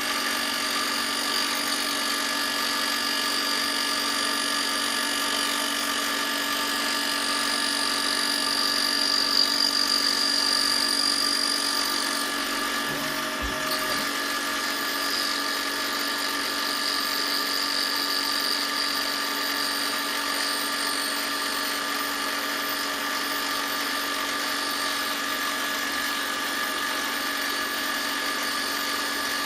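A high-speed electric power tool running steadily with a constant-pitch motor whine. It gets a little louder around ten seconds in and dips briefly a few seconds later.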